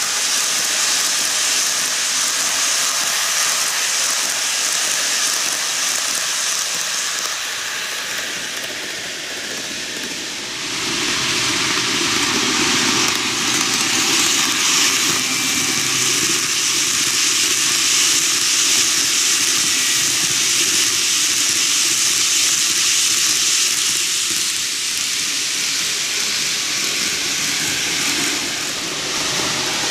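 TOMIX N-gauge JR 185-0 series model train, a 15-car set, running on its track: a steady whirring hiss of motor and wheels. It fades a little about eight to ten seconds in, then comes back louder.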